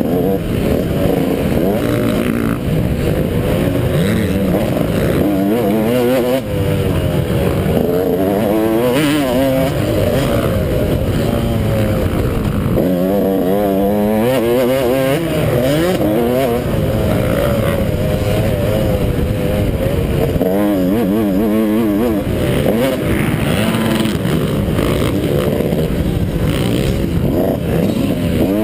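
A 250-class motocross dirt bike engine revving hard, heard close up from on board, its pitch climbing and dropping again and again as the throttle is worked through the jumps and gears, over a constant rushing noise.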